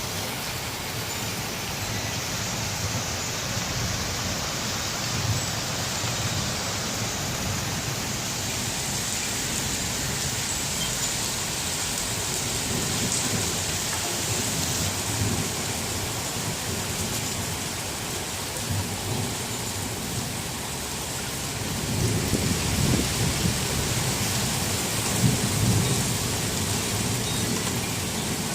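Steady rain falling during a thunderstorm, with thunder rumbling low underneath that grows louder about three quarters of the way through.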